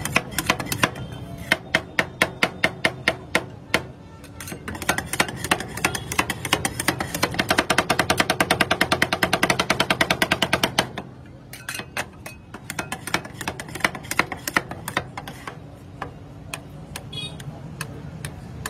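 Two metal spatulas rapidly chopping and scraping ice cream mix on a steel cold plate: a stream of sharp metal clacks, becoming a fast, even run about five seconds in, then thinning to slower, scattered strikes about eleven seconds in.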